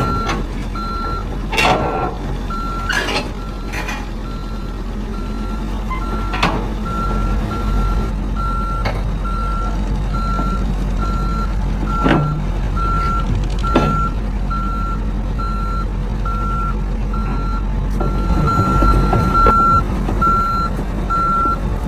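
Heavy earth-moving machine's reversing alarm beeping steadily at one pitch over the low rumble of a diesel engine, with a few sharp metallic clanks.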